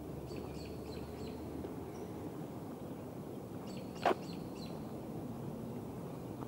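Outdoor park ambience picked up by an action camera's built-in microphone: a steady low rumble, with a few short bird chirps near the start and again about four seconds in. A single sharp knock about four seconds in is the loudest sound.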